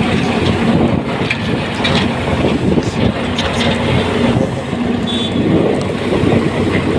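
Tractor engine running steadily while the tractor drives along with its trailer, heard close up from the driver's seat.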